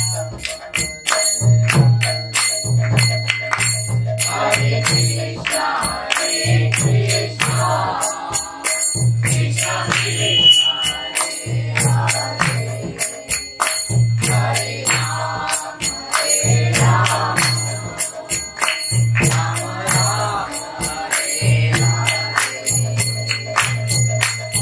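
Devotional kirtan: voices singing in phrases over a drum's repeating deep pattern and small hand cymbals clashing in a fast, steady beat.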